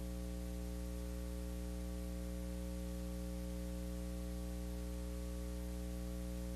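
Steady electrical hum with its overtones over a light hiss, unchanging throughout: mains hum in the sound feed.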